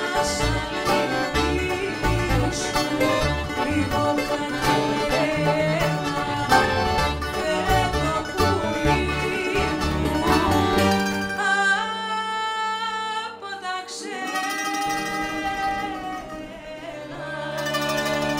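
Greek band playing an Asia Minor traditional song live: a woman singing over bouzouki and baglama, with guitar, accordion and double bass. About ten seconds in, the bass and rhythm drop out and the music thins to long held notes; the full band comes back near the end.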